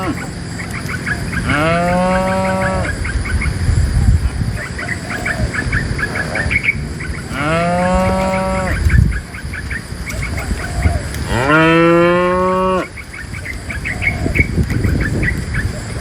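Cows mooing: three long, low moos, each a second or more, spaced a few seconds apart.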